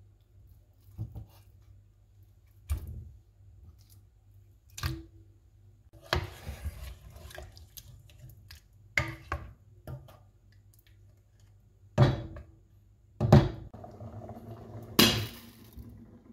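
A ladle knocking and scraping against a stainless steel pot of fish curry: about eight sharp knocks at irregular intervals, with a glass pot lid set down on it near the end.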